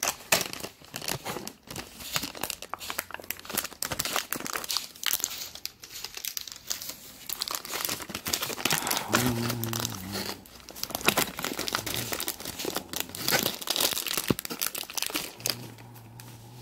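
Plastic film lid of a packaged snack tray crinkling and tearing as it is peeled back and handled: a dense, irregular run of crackles.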